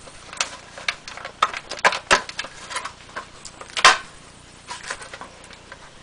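Replacement control panel of a Masterbuilt electric smoker being worked into its opening in the smoker body, making irregular clicks and knocks. The loudest knock comes about four seconds in.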